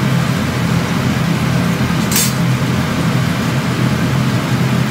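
Steady hum of the kitchen range hood fan over a frying pan of tofu, with a single short clink about two seconds in as the pan is stirred with a wooden spatula.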